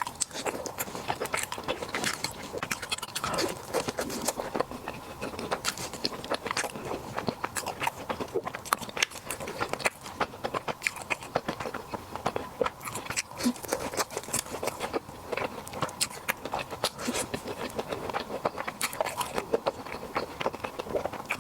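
Close-miked mukbang eating sounds: chewing and mouth smacking as a rapid, irregular run of wet clicks that keeps going without a break.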